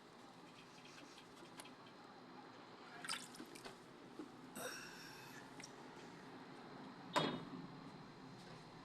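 Water dripping: a few separate drops, one with a short ringing plop and the loudest about seven seconds in, over a faint steady background.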